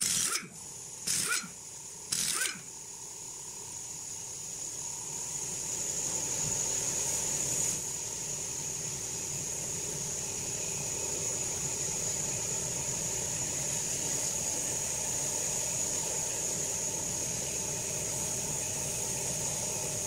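Pneumatic impact wrench on the van's wheel bolts, three short bursts about a second apart. Then a steady hiss with a thin high whine.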